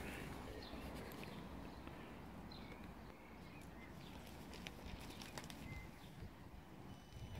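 Quiet outdoor ambience with a few faint, short bird chirps scattered through it and some light clicks.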